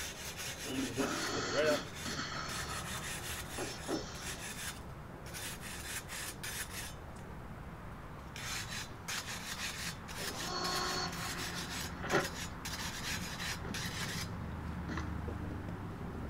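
Scrubbing a dirty barbecue grill by hand: a rasping, rubbing scrape in repeated irregular strokes.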